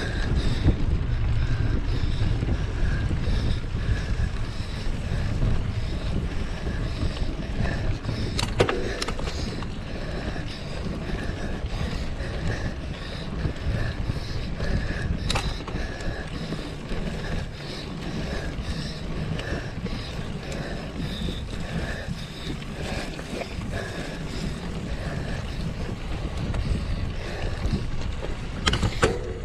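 Wind noise on the microphone of a camera riding on a mountain bike, over steady rolling trail noise, with three sharp knocks from bumps.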